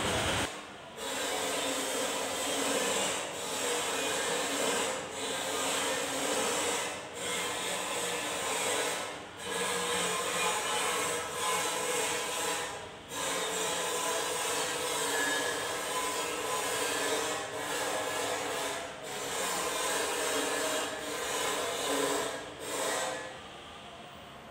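Rasping, scraping strokes of a hand tool worked on the tractor engine, repeating about every two seconds with brief pauses between them, dying away near the end.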